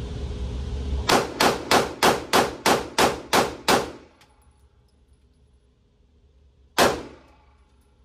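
Glock 17 Gen 5 9mm pistol fired in a quick string of nine shots, about three a second, each echoing in the indoor range, then one more single shot about three seconds later.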